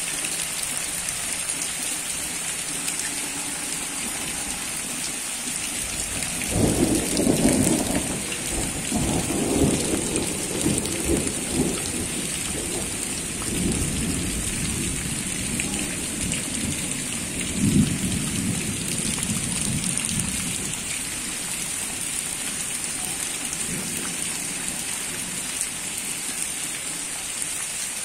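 Heavy rain pouring steadily. About a quarter of the way in, a long rolling rumble of thunder starts, swells several times and dies away after about fifteen seconds, leaving the rain alone.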